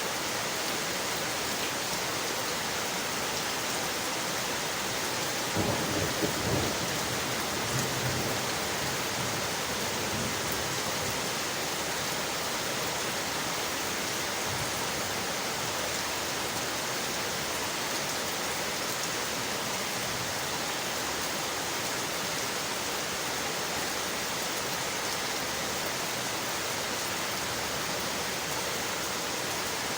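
Steady rain on windowpanes, an even hiss of falling water. There is a brief low rumble about six seconds in and a smaller one about two seconds later.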